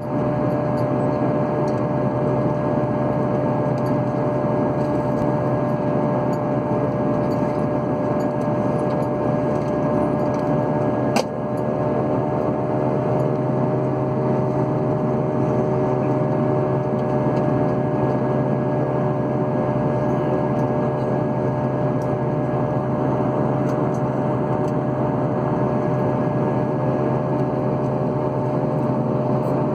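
Steady drone of aircraft engines heard inside the cabin, holding a constant pitch with several fixed tones, with one sharp click about eleven seconds in.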